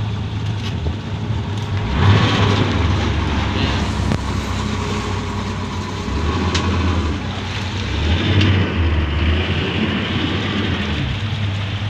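Boat engine running steadily with a low hum, under rushing wind and water noise.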